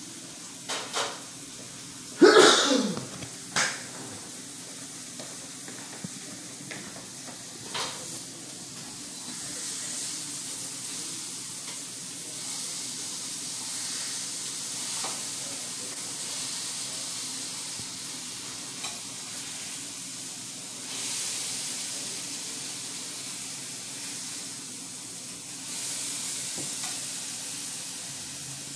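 Food frying in a pan on the stove, the sizzle swelling and easing off in waves. A few sharp knocks come in the first few seconds, the loudest about two seconds in.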